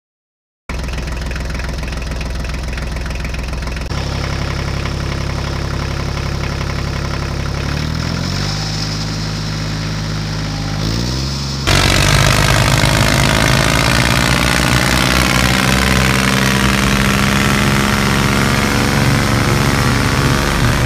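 Tractor engine sound, starting about a second in and running steadily. Its pitch rises and falls a few times around the middle, then it runs louder and harder for the rest.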